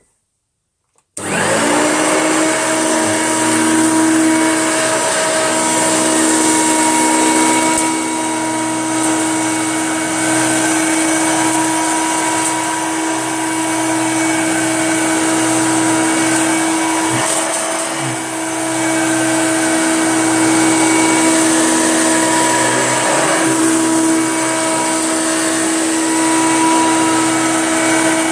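Hoover Junior upright vacuum cleaner switched on about a second in, its motor coming up to speed almost at once and running steadily with a strong hum and a hiss of rushing air. The tone wavers briefly a couple of times as it works over biscuits and debris.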